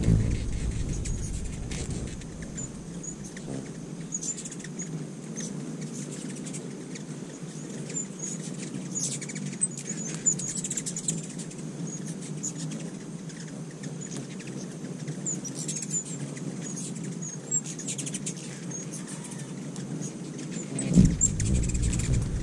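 Ruby-throated hummingbirds at feeders: many tiny, high chip and twitter calls scattered throughout, with the buzz and flutter of wings as birds hover and chase. A low rumble sits under the start and comes back loudest about 21 seconds in.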